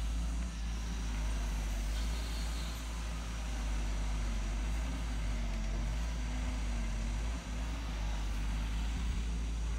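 Wheeled excavator's diesel engine running steadily under work, its pitch dipping and rising slightly in the middle as the hydraulics take load while the boom swings and the bucket digs.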